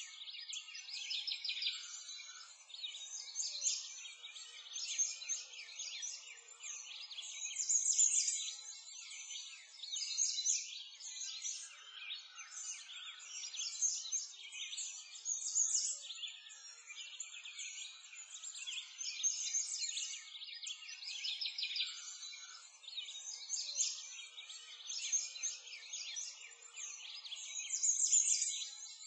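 Chorus of small birds chirping and singing, many short high-pitched calls overlapping without pause.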